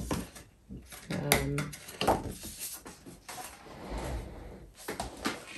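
Paper card and plastic stencils being picked up, slid and set down on a craft table: scattered light clicks and knocks, with a stretch of rustling a little past halfway. About a second and a half in there is a brief murmur of voice.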